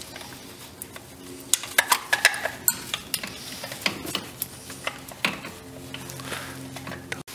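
Ratchet wrench clicking in short runs with metallic clinks as the distributor's mounting bolts are tightened, most of the clicks packed into a second or so near the start, a few single ones later.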